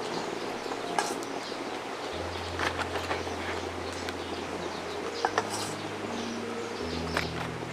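Birds chirping over a steady hiss, with a few light sharp clicks scattered through.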